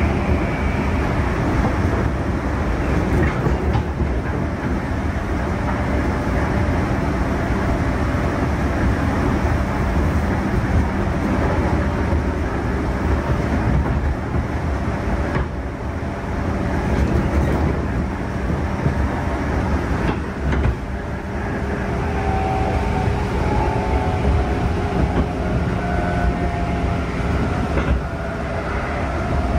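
JR East 211 series electric multiple unit (field-added excitation control) running, heard inside the passenger car: a steady loud rumble of wheels on rail with a constant low hum. A faint whining tone joins in after about twenty seconds.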